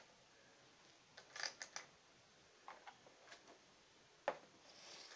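Faint, irregular clicks and taps of a hand handling pieces on a plastic toy game board, with a sharper single click a little after four seconds.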